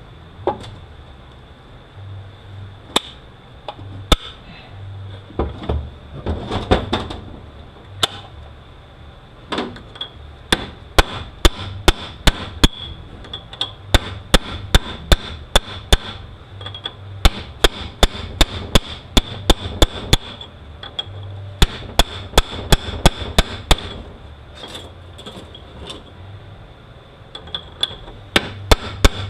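Hammer driving a chisel against a nut on a transmission shaft to break it loose. There are a few scattered metal strikes at first, then runs of sharp blows at about three a second, broken by short pauses.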